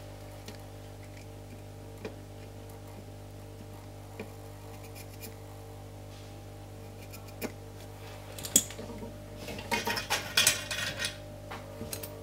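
Soldering work on a circuit board: light clicks and taps of a soldering iron and small metal tools, with a cluster of sharper clinking and rattling about eight to eleven seconds in, over a steady low hum.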